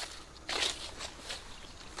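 Footsteps walking across grass strewn with fallen leaves, a few swishing steps about half a second apart.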